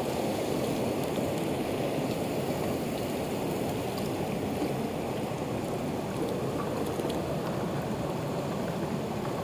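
Mountain torrent rushing over rocks: a steady, even rush of water.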